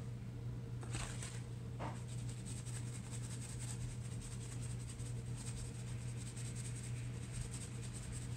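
A makeup brush being rubbed back and forth on a paper towel to dust off eyeshadow: a dry, rapid scratching. Two short rustles of the paper come about a second and two seconds in, and a steady low hum sits underneath.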